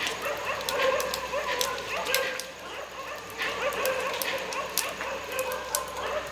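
Several dogs barking and yelping over one another in a steady run of short calls, with scattered sharp clicks between them.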